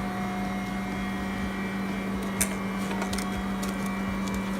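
Screen-separating freezer machine's compressor running with a steady hum, with a few sharp clicks of handling about two and a half and three seconds in.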